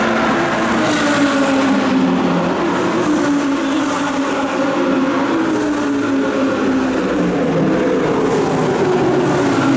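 Race car engines running, their pitch sliding down and back up in slow sweeps lasting a few seconds each.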